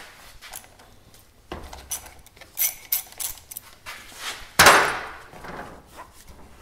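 Light knocks and clicks of hands and tools working on a dirt bike's front fork, with one much louder clunk about four and a half seconds in that trails off into a rustling rush.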